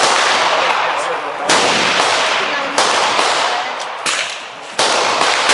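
Rifle shots on a firing range, about five sharp reports in quick succession, each followed by a long echoing tail. The last two come close together, near the end.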